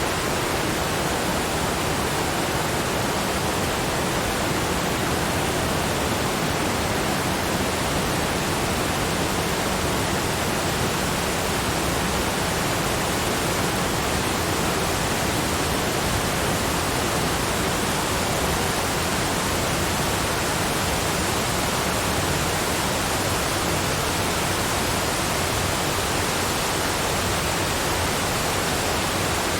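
Waterfall: falling water in a steady, unbroken rush spread evenly from low to high pitch, with no changes.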